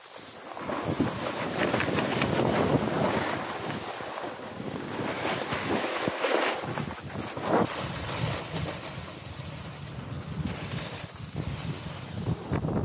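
Snowboard edge scraping and hissing through firm, chopped-up snow as it carves, swelling and easing from turn to turn, with wind rushing over the microphone.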